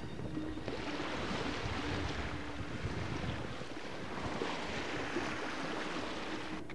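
Water rushing and splashing along the hull of a Catalina 27 sailboat under way, with wind buffeting the microphone. The hiss of the water swells twice.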